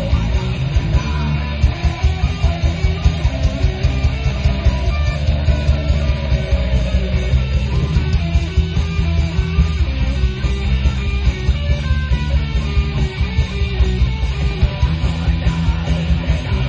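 Rock music with electric guitar, a heavy bass line and a steady, driving beat.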